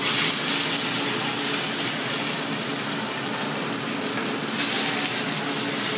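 Thin slices of raw meat sizzling loudly in hot fat in a steel frying pan on a gas burner, starting suddenly as the meat goes in and growing louder again about four and a half seconds in.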